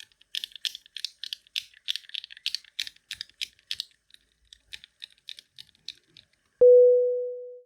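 Rapid typing on a low-profile keyboard with Kailh Choc V1 switches, a quick run of light, high-pitched key clicks. About six and a half seconds in, the typing gives way to a single pure tone like a chime, which starts sharply, is the loudest sound, and fades out over about a second.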